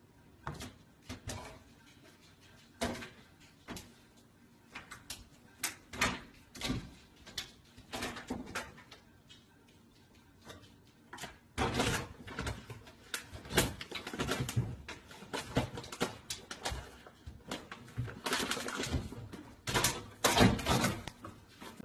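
A cat's claws scrabbling and knocking on a microwave and kitchen cabinet, with rustling as it pulls a green plastic package out of the cabinet. The knocks are scattered at first and turn into a busier run of scratching and rustling about halfway through.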